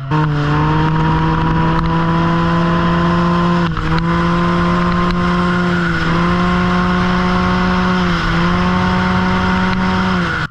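2021 Can-Am Ryker 900's three-cylinder engine through an RLS aftermarket exhaust, running loud at high, steady revs while under way, with three brief dips in pitch as the throttle eases and picks up again. Wind noise rushes over the microphone underneath.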